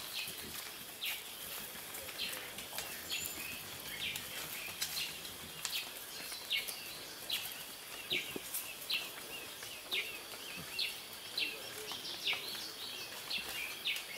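Rainforest ambience: a short, high chirp that falls in pitch repeats about every half second over a steady outdoor background.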